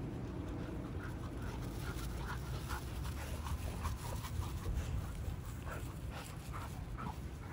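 A Labrador panting in quick short breaths, about three a second, during play, over a steady low rumble.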